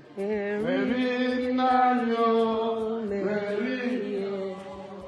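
A voice chanting a worship song in long held notes over a light, regular ticking beat, trailing off near the end.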